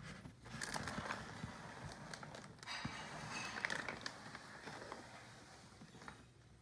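Cardboard box and packaging being handled: rustling and scraping with scattered small knocks and clicks, dying down near the end.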